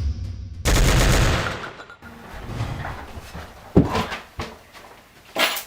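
Gunfire sound effects: a loud burst of rapid shots about a second in that fades away, followed by a few single sharp shots.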